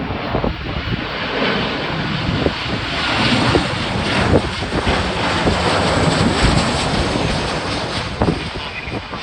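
Jet airliner on final approach passing close overhead, its engine noise swelling to a peak around the middle and easing off near the end, with gusts of strong wind buffeting the microphone.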